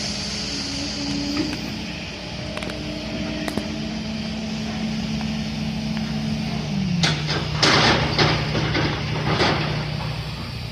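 Excavator diesel engine running steadily; about seven seconds in its pitch drops, followed by a cluster of loud cracks and snaps over about two seconds.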